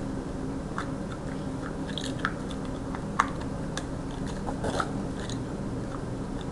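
Small plastic game pieces clicking and crackling as they are handled and pressed together, with scattered sharp clicks over a steady low hum.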